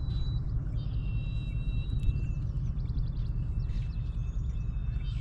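Open rural ambience: a steady low rumble of wind and movement on the microphone, with thin, held high whistles and short chirps from birds.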